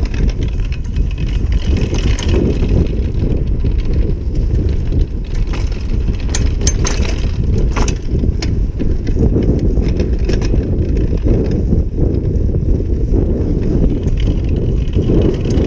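Mountain bike ridden fast over a dirt trail: a steady low rumble from the tyres and the ride, with scattered clicks and rattles from the bike jolting over bumps.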